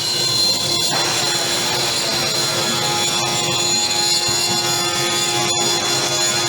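Three-spindle CNC router milling wooden cabriole legs on rotary axes: the spindles whine steadily at several high pitches over a continuous cutting noise.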